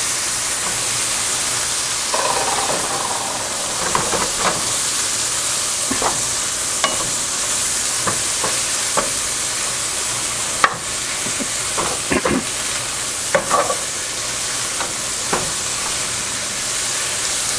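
Fresh kale sizzling and hissing in a hot frying pan with onions and oil. Water from the leaves hits the nearly dry pan and turns to steam. A spatula gives short scrapes and taps against the pan every second or so as the kale is turned.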